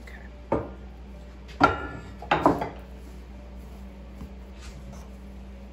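Wooden rolling pin knocking and rolling against a wooden counter: three short bursts of wooden clatter in the first three seconds, the loudest about a second and a half in.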